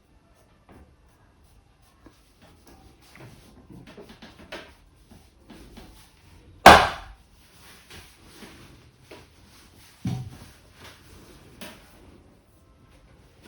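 A barber's hands working over a head during a massage: soft rubbing and light taps, one loud sharp slap about seven seconds in, and a duller thump about three seconds later.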